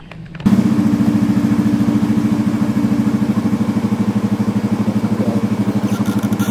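Motorcycle engine idling steadily with a regular pulsing beat, starting abruptly about half a second in.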